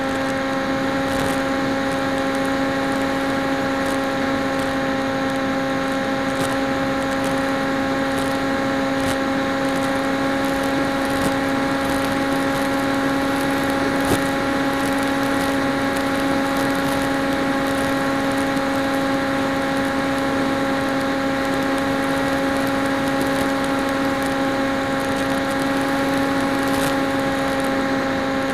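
The PopWing's electric motor and propeller heard through its onboard camera: a steady buzzing hum at one unchanging pitch, at a constant cruise throttle, over an even hiss of air rushing past.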